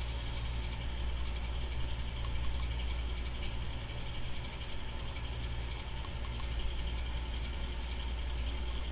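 A steady low hum with an even hiss, unchanging throughout: background machine or electrical noise in the room.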